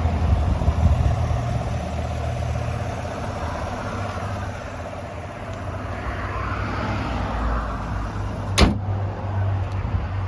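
2020 GMC Sierra pickup's engine running steadily with a low rumble, with one sharp click about eight and a half seconds in.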